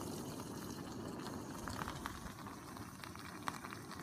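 Chilli con carne and rice heating in a camping pot on a gas canister stove, bubbling softly over a steady low rush with scattered small crackling pops.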